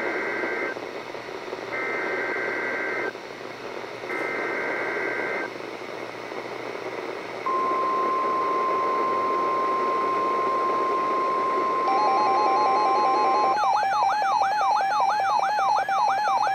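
NOAA Weather Radio's Required Weekly Test coming through a radio speaker over static hiss. It opens with three short screeching SAME data bursts, the first already under way. About seven seconds in, the steady 1050 Hz warning alarm tone begins. About twelve seconds in, weather alert receivers trip their own alarms: a fast beeping tone, then a repeating rising siren-like sweep, about two a second.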